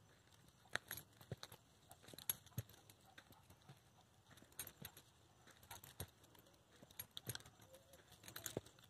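Faint, irregular clicks and scuffs of footsteps climbing timber-edged gravel steps, a few steps a second.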